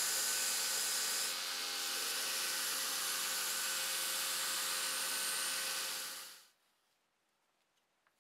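Belt grinder running steadily, with a small metal knife-handle part held against its abrasive belt for grinding; the sound stops suddenly about six seconds in.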